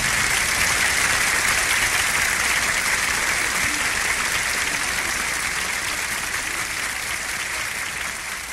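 Audience applauding after a song ends, a steady clapping that slowly fades out.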